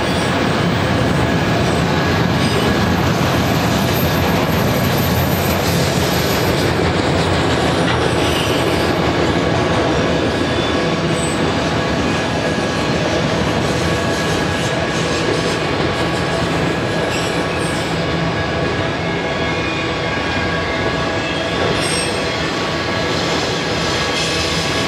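A long string of auto-rack freight cars rolling past at steady speed: a constant rumble and rattle of wheels on rail, with thin steady squealing tones from the wheels over it.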